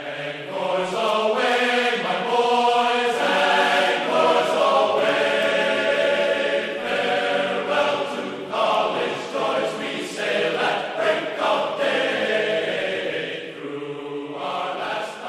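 Background music: a choir singing slow, held chords that shift every second or two, fading out near the end.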